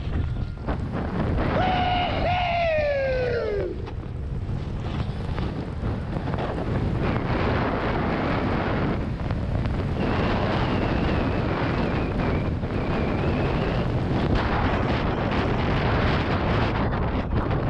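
Steady wind noise on the microphone during a downhill ski or snowboard run through a snowstorm. About two seconds in, a short pitched sound slides down in pitch.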